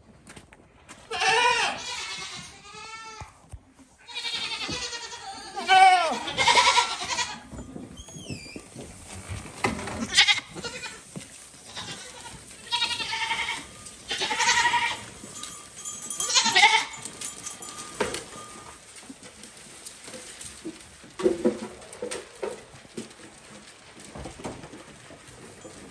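A herd of goats bleating, many loud, high calls overlapping in quick succession: the goats calling for their evening grain. Short knocks and scuffs of hooves come in between as the herd runs in, and the bleating thins out to a few quieter calls after about seventeen seconds.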